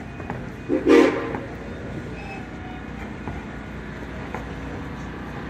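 A short toot, about half a second long, of the Cumbres & Toltec narrow-gauge steam locomotive's whistle about a second in, over a steady low rumble.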